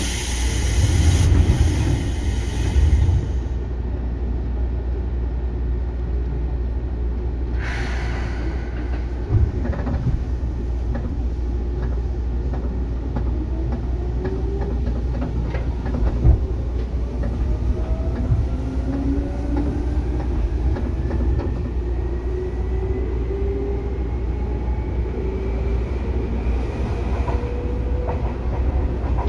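Seibu 2000 series electric train heard from inside the car, pulling away and accelerating. Its traction motors give a whine of several tones that rises slowly and steadily in pitch through the second half. A burst of air hiss comes in the first few seconds, another short hiss follows later, and a few knocks sound on the rails.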